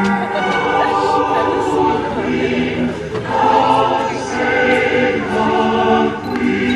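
Music with a choir singing held notes.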